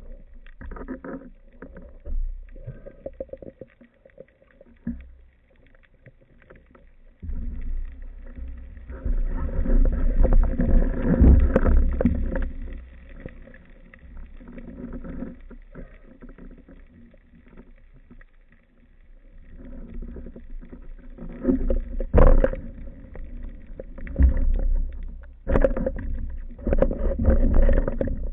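Muffled water sloshing and splashing around a speargun-mounted action camera in a waterproof housing at and just below the sea surface, as the diver moves and handles the speared fish. It comes in irregular rumbling surges with quieter spells between.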